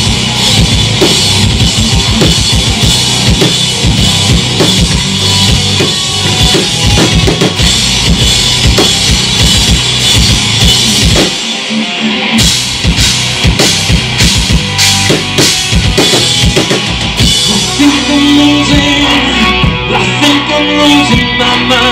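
Loud live rock band playing an instrumental passage with no singing: full drum kit with bass drum and snare under electric guitars and bass. About halfway the low end drops out for a moment before the full band crashes back in.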